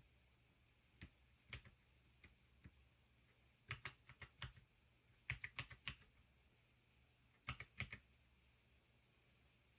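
Keys of a Pinky4 mechanical keyboard being pressed one at a time to test that each registers: scattered single clicks, then three short bursts of a few quick keystrokes, then stillness near the end.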